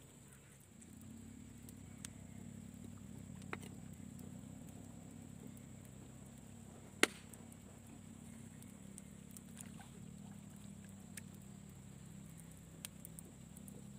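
A knife knocking sharply against a wooden plank as fish are cleaned, a few separate strikes with one louder strike about halfway through. Under it runs a low, steady motor drone that starts about a second in.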